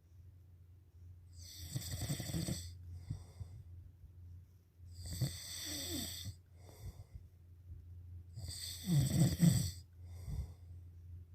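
Snoring in a slow, even rhythm: three long, loud snores about three and a half seconds apart, each followed by a shorter, fainter breath.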